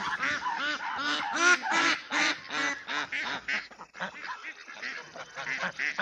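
Domestic geese honking over and over, several birds calling over one another at about two or three honks a second.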